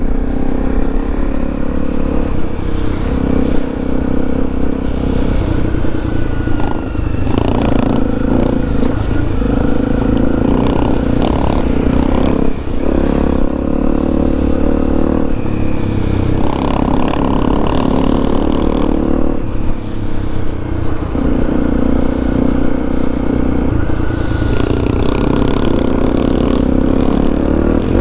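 Honda CRF250 single-cylinder trail-bike engine running under way. Its note holds steady for a few seconds at a time, then steps to a new pitch as the throttle and gears change, with brief drops about twelve and twenty seconds in.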